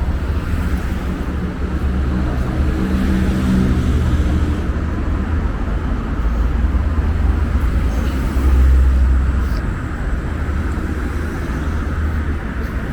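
Street traffic: motor vehicles running and passing, a continuous low rumble with one engine standing out a couple of seconds in, and the loudest pass a little past the middle.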